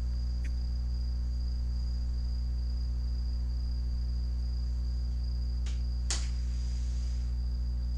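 Steady low hum with a thin, steady high-pitched whine over it, and a few faint clicks around six seconds in.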